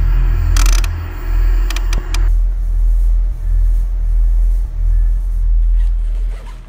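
Deep rumbling time-machine sound effect that swells and eases several times, with bursts of crackling static in the first two seconds; the rumble dies away near the end.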